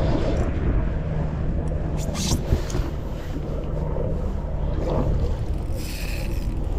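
Wind buffeting the microphone as a steady low rumble, with two short hissing bursts, about two seconds in and again near the end.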